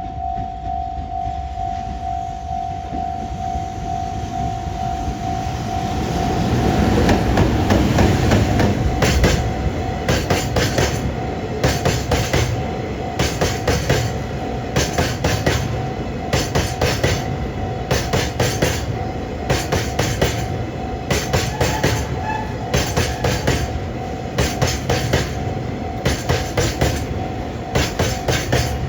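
A level-crossing bell rings steadily while a freight train passes. The EF210 electric locomotive goes by, loudest about eight seconds in. A long string of tank wagons follows, their wheels clattering over the rail joints in tight clusters of clicks about once a second.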